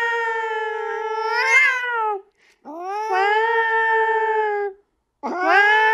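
Domestic cat yowling in three long, drawn-out cries. The first ends with a brief upward flick in pitch, and the third is cut off as it begins.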